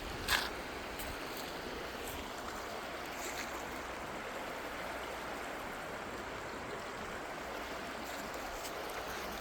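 Mountain valley stream flowing steadily, with a brief sharp click about a third of a second in and a fainter one near the middle.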